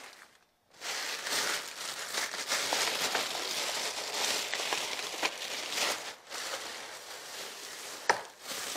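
Rustling and crinkling noise with scattered small clicks, and one sharp click about eight seconds in.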